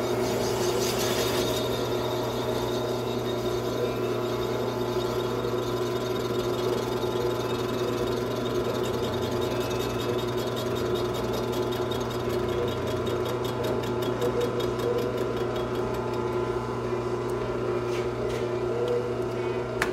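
Metal lathe running steadily, spinning a Stihl MS 500i chainsaw cylinder while a cutting tool takes a slow finishing pass off its base face.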